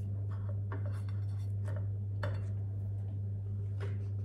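Table knife scraping and clicking as it spreads soft cream on a pancake and dips into a plastic tub: a string of short scrapes and light clicks over a steady low hum.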